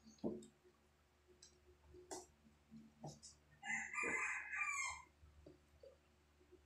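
A rooster crows once for a little over a second, starting about halfway through, and is the loudest sound here. Before it come a few soft knocks and splashes from glasses being hand-washed in a basin of water.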